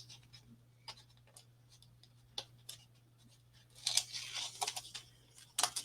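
Fingers picking at the tape backing on a paper craft card: scattered light ticks and taps, then a scratchy rustle of paper about four seconds in, with a brief one again near the end.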